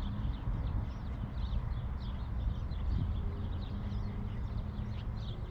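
Wind buffeting the microphone, a dense low rumble, with faint high chirps scattered throughout.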